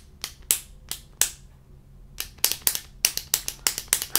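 Click mechanism of a By Terry click-stick lip pen being clicked repeatedly to push the product up. A few separate clicks, a pause of about a second, then a quicker run of clicks, about five a second.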